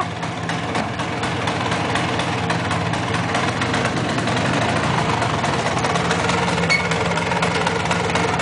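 Vintage motor scooter's small two-stroke engine idling steadily.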